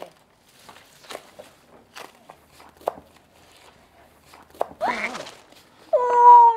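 Kitchen knife chopping green onions on a cutting board, single strokes about once a second. Near the end, a loud pitched sound held for about half a second, as the knife nearly catches a hand.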